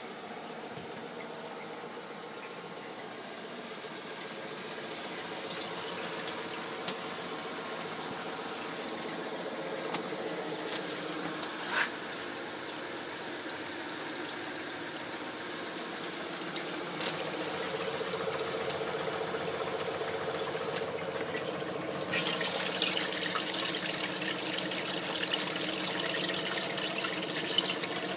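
Homemade refrigeration chiller running: its belt-driven compressor gives a steady hum with a thin high-pitched whine, and there are a couple of faint clicks. Near the end a louder splashing hiss joins it, from the chilled coolant bath swirling in its open tank.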